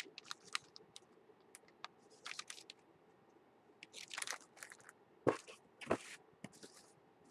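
Product packaging being handled: irregular crinkling and rustling with small clicks, in clusters, then two sharper knocks a little past the middle as items are set down.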